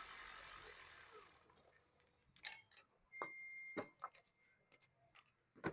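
Toyota Prius just switched off: its faint running noise fades out within about a second, leaving near silence broken by a few light clicks and a short high beep near the middle.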